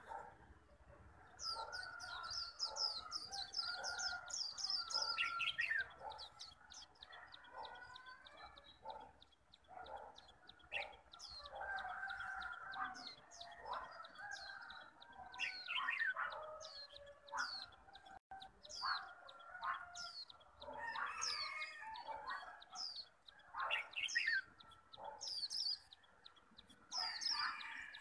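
Caged white-eye (khuyên) singing its 'líu' song: bursts of quick, high down-slurred notes, with lower-pitched bird calls running underneath.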